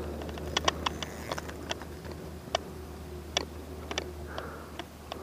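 Handling noise: a dozen or so irregular sharp clicks and taps over a low steady hum that stops near the end.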